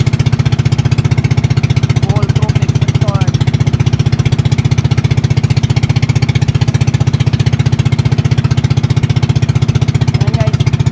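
Boat engine heard on board, running steadily: a loud, low chugging with a rapid, even beat.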